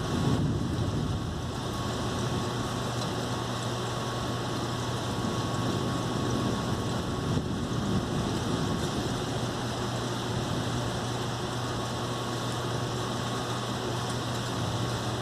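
Thunderstorm noise: a steady rushing of rain and wind, with low rolls of thunder swelling up near the start and again around the middle, over a steady low hum.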